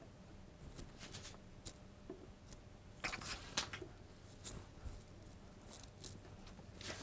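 Faint, scattered taps and clicks of wooden strips being handled and pressed into line by hand during a glue-up, with a short cluster of louder knocks about three seconds in.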